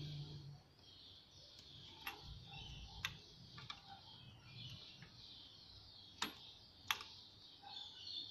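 Metal parts of a diesel injection pump clicking and tapping as they are handled and taken apart by hand, about half a dozen sharp, separate clicks over a faint steady hiss, the loudest two a little after six and seven seconds in.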